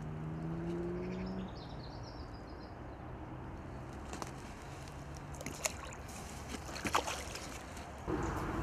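A common carp released back into lake water at the bank, with a few short splashes in the second half as it goes in and swims off, over a faint steady low hum.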